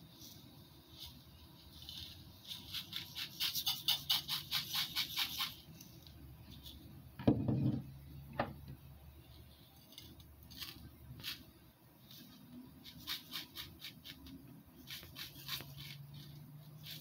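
Glass mason jars of bath salts being handled on a table: bursts of rapid clicking and rattling, and one solid knock about seven seconds in as a jar is set down.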